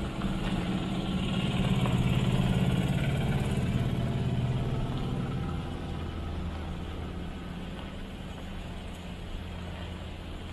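Road train's diesel truck engine running, loudest for the first few seconds, then dropping to a lower, quieter steady drone about halfway through.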